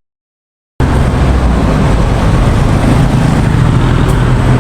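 Dead silence for most of the first second at an edit cut, then a vehicle engine running steadily with a loud low drone.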